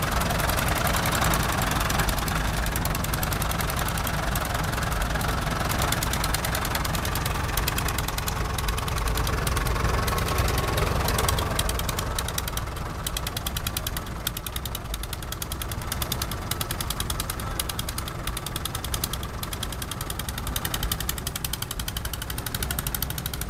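Someca SOM 40 tractor engine running steadily with an even knocking beat, turning the belt that drives a threshing machine. Loud and close at first, fainter from about halfway.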